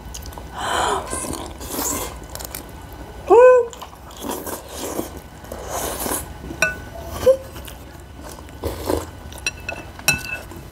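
Two people eating momo dumplings in soup at speed: irregular slurping and chewing with light clicks of cutlery on the bowls. About three and a half seconds in there is one short squeal-like vocal sound from one of the eaters.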